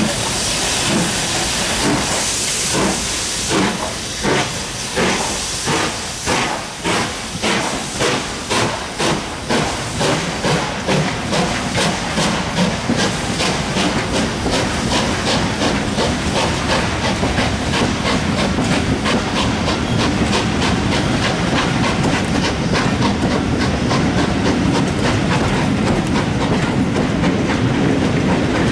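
BR Standard Class 5 steam locomotive No. 73082 pulling away: a hiss of steam, then exhaust beats that quicken as it gathers speed. The beats give way to the steady rumble and clatter of the carriages rolling past.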